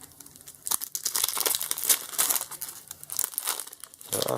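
Foil Pokémon trading-card booster pack wrapper crinkling and tearing open, a dense run of crackles starting about a second in.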